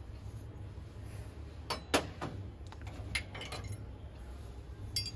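Brass utensils clinking and knocking against each other as they are handled: a few sharp metallic clinks with a short ring, the loudest about two seconds in, a cluster a second later and one more near the end, over a low steady hum.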